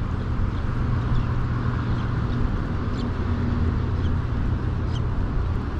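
Steady low outdoor rumble by open water, with a few faint, short high-pitched chirps scattered through it.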